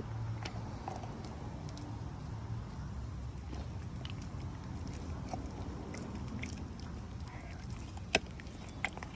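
American Pit Bull Terrier gnawing and crunching a raw meaty bone held in a hand, with scattered small clicks of teeth on bone and a sharp click about eight seconds in. A steady low rumble runs underneath.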